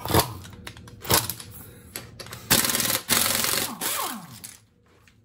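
Impact wrench hammering on the lug nuts of a car wheel: two short bursts, then a longer rattling run from about two and a half seconds in that ends in a falling whine as the tool spins down.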